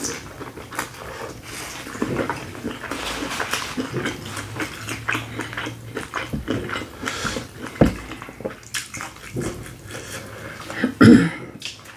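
Close-up wet eating sounds: chewing, lip-smacking and finger-licking of saucy seafood boil, a run of irregular short clicks and squelches. One louder burst of sound comes near the end.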